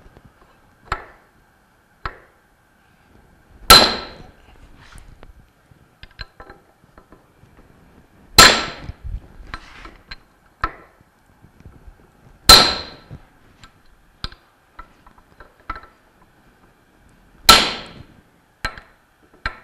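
Hammer blows on a steel pipe driver seating a ball bearing onto a pump shaft: four hard, ringing metal strikes a few seconds apart, with lighter taps between them. The strikes are getting a little louder as the bearing bottoms out against the shaft collar, a sign it is fully seated.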